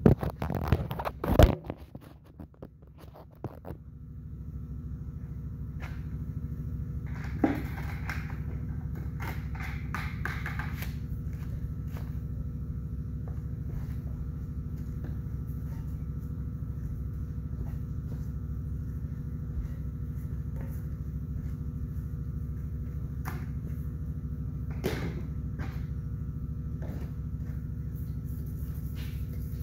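A few loud knocks as the camera is handled and set down, then a steady low machine hum starts about four seconds in and keeps going, with a few brief knocks and rustles over it.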